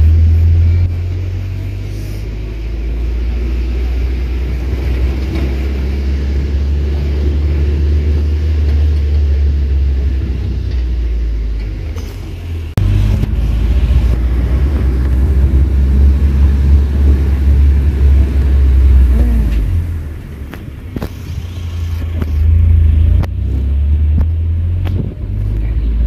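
Work truck driving, heard from its open cargo bed: a steady low rumble of engine, road and wind on the microphone. It eases briefly about twelve seconds in and again around twenty seconds.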